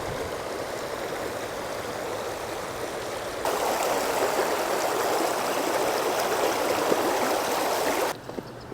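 Small river running over stones, a steady rush of water that gets louder about three seconds in and drops away suddenly near the end.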